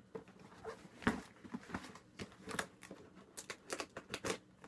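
A knife cutting through packing tape on a cardboard shipping box while the box is handled, heard as a string of short, irregular scrapes and knocks.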